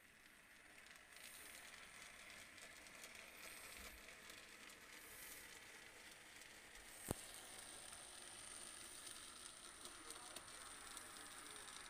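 Model Baldwin steam locomotive and two goods wagons running along model railway track: a faint steady whir and rattle of the small motor and wheels, getting louder about a second in, with one sharp click about seven seconds in.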